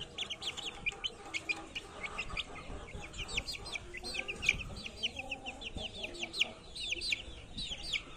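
Month-old chicks peeping, a steady run of short, high chirps that each fall in pitch, several a second.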